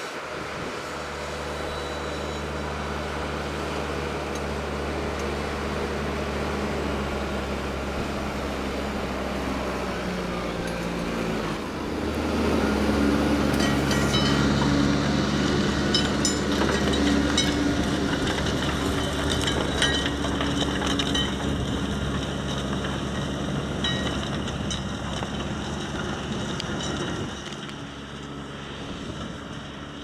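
JCB Fastrac 2155 tractor's diesel engine running steadily under load as it pulls a four-furrow plough through the soil. About halfway through it grows louder and closer, with scattered clicks and rattles from the plough working the stony ground.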